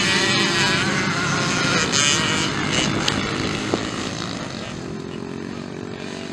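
Small motocross bikes' engines revving as young riders race past. The engines are loudest at first and fade over the following seconds as the bikes pull away.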